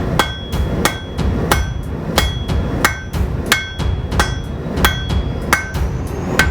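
Hand hammer forging a bar of 5160 truck-spring steel on an anvil in a steady rhythm of about three blows every two seconds, each blow with a short metallic ring.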